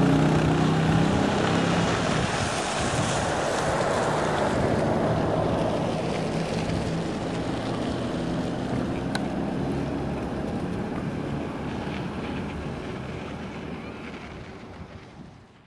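Vehicle engine and road noise with wind rush, heard from the moving vehicle, with a low steady engine hum early on; it fades out over the last few seconds.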